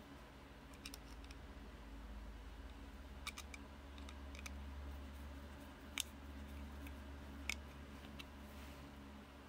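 Faint scattered clicks and taps of a small metal sewing-machine motor pulley being handled on a steel rod. The sharpest click comes about six seconds in and another about a second and a half later, over a faint low hum.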